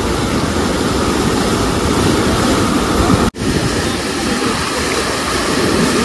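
Whitewater cascade of a rocky waterfall rushing in a steady, loud wash of noise, broken for an instant a little over three seconds in.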